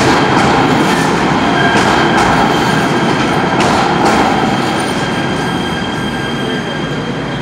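Light rail train running past along an underground station platform: a loud rumble of steel wheels on rail with a thin, steady wheel squeal and a few sharp wheel clicks. It grows slightly quieter in the second half.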